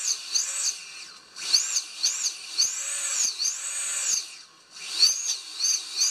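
Armattan Oomph Titan 2306 2450KV brushless motors spinning with no propellers, whining up and falling back in pitch as the throttle is blipped, about eight rises and falls, two of them held a little longer in the middle. The motors respond to throttle cleanly and sound okay on this bench test.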